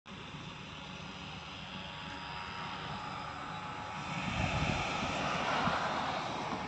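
Outdoor background noise with a passing motor vehicle: a steady hiss and low hum that grows louder about four seconds in as the vehicle goes by, then eases off near the end.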